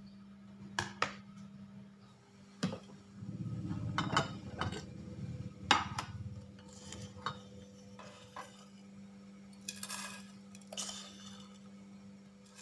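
Kitchen dishes and utensils being handled: a scattered series of clinks and knocks, with a few seconds of low rubbing or scraping in the middle, over a steady low hum.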